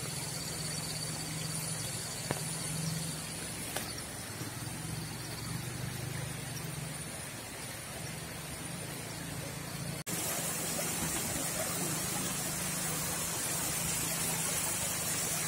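Motorcycle engine running steadily at low speed. About ten seconds in the sound cuts abruptly to a louder rushing hiss of water running over the road, with the engine hum still beneath it.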